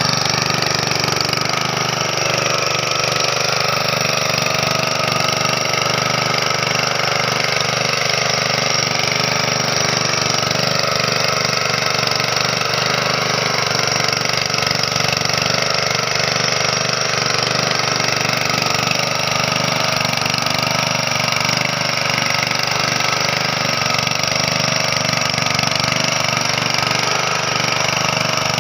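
Honda GX160 5.5 hp single-cylinder four-stroke engine running steadily, its pitch wavering slightly as it works.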